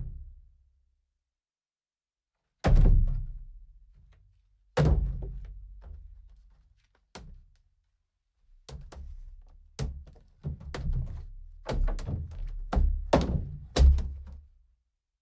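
A series of heavy thud sound effects, each hitting suddenly with a deep boom that dies away over a second or two. Two come a couple of seconds apart, then a small one, then a quicker run of several more in the last six seconds.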